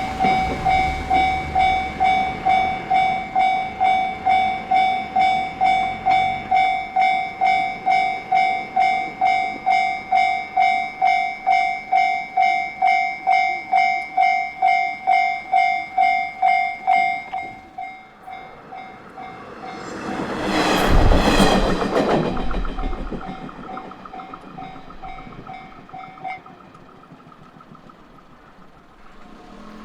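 Japanese railway level crossing alarm bell ringing at about two and a half strokes a second, dropping in volume after about 17 seconds. A JR Takasaki Line train passes in a brief rush of rail and wheel noise about 20 seconds in, and the bell stops a few seconds later.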